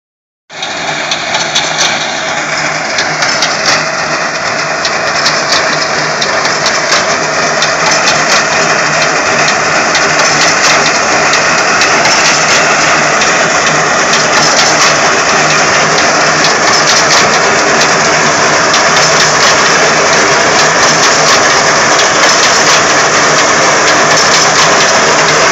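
Tractor-mounted reaper binder cutting and binding wheat: the tractor engine runs steadily under a rapid clatter from the cutter bar and binding mechanism. The sound grows a little louder as the machine comes closer.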